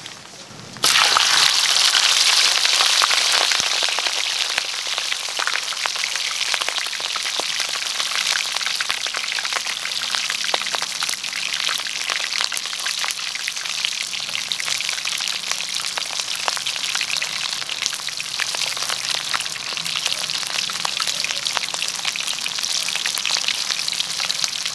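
Boiled pork leg frying in hot oil in a wire basket in a wok: a dense sizzle and crackle that starts suddenly about a second in, loudest at first, then settles to a steady fry.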